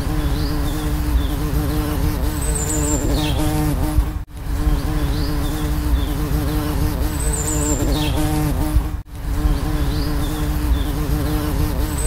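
Bumblebees buzzing in a continuous wavering drone, with a few birds chirping faintly behind. The sound cuts out for an instant twice.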